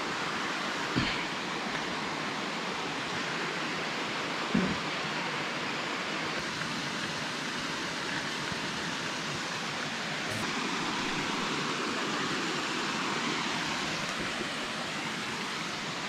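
Steady rushing of a rocky forest stream and its small cascades, with two soft knocks in the first five seconds.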